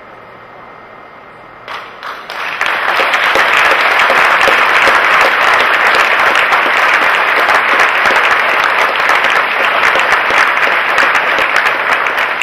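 Audience applauding: a few scattered claps about two seconds in, then steady applause from a large crowd.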